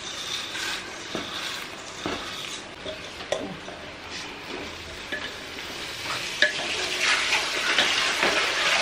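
Washed rice tipped into hot ghee and onions in a pressure cooker and stirred with a wooden spatula: frying and sizzling, with scrapes and knocks of the spatula against the pot. The sizzle grows louder from about two-thirds of the way through.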